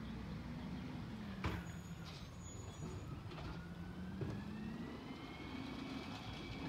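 Recycling garbage truck's engine running, its pitch rising and falling as it revs, with a sharp bang about a second and a half in and another knock near two thirds of the way. A whine climbs steadily from about halfway, as a blue recycling cart is lifted and tipped into the truck.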